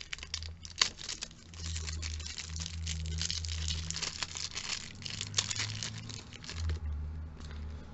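Clear plastic cellophane wrapper crinkling and crackling as it is pulled open by hand to free a lipstick tube. The crackling stops about seven seconds in.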